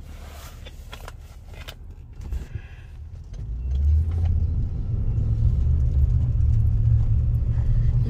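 Low rumble of a car, swelling strongly about three and a half seconds in and staying loud, with a few light clicks and rattles before it.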